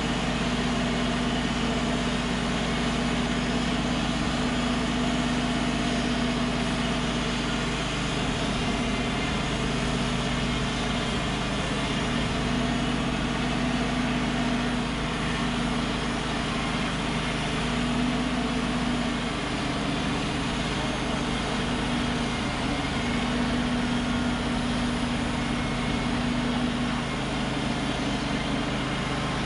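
Wood-Mizer LT35 portable bandsaw mill running steadily, its band blade sawing through a Douglas fir log, with a hum that drops in and out every few seconds.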